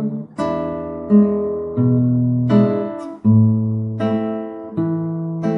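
Classical acoustic guitar played with the fingers: chords plucked one after another, a new one about every three quarters of a second, each ringing on over a changing bass note.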